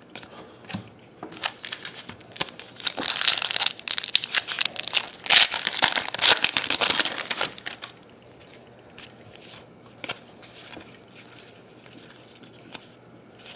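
Hands tearing open and crinkling the wrapper of a 2012-13 NBA Hoops basketball card pack, loudest from about three to eight seconds in. Quieter handling of the cards follows.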